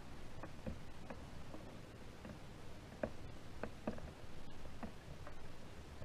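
Scattered light ticks and taps, irregular at roughly one or two a second, over a faint low background rumble.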